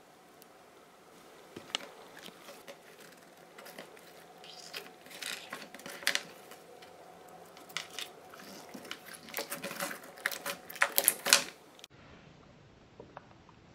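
Clear pink glitter slime packed with plastic alphabet beads being stretched and pressed by hand, giving sticky clicks and crunchy crackles. The clicking grows denser and louder about nine to eleven seconds in, then stops suddenly about twelve seconds in.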